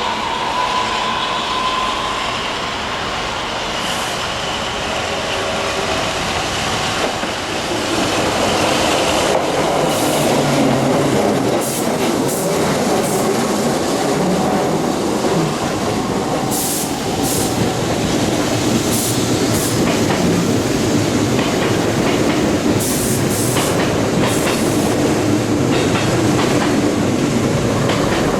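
An electric train running along the track, wheels clattering, getting louder about eight seconds in. From about ten seconds in come many short sharp high clicks and squeals from the wheels on the rails.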